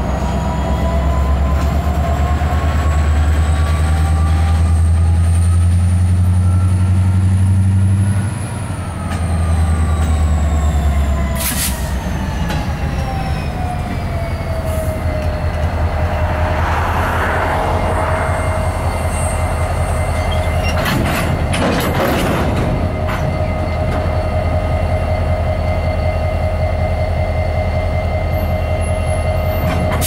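Diesel locomotive and slug unit rolling slowly past with a cut of freight cars. The engine runs loud and low for the first eleven seconds or so. A whine climbs in pitch for about eight seconds, then falls away over the next several. After that comes a steady high wheel squeal, with a few metallic clanks from the cars.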